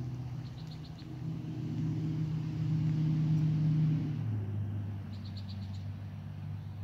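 An unseen engine hum growing louder, then dropping to a lower pitch about four seconds in and easing off, as a vehicle passes. Two short runs of high chirps, near the start and about five seconds in.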